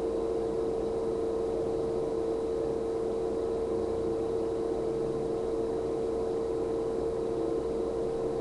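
Steady hum with one constant mid-pitched tone over a low even rumble, unchanging throughout.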